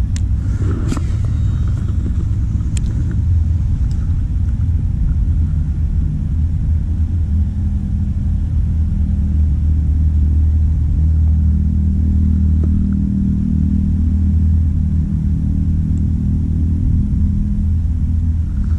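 Steady low engine rumble, like a motor vehicle idling, holding an even hum throughout, with two faint clicks about one and three seconds in.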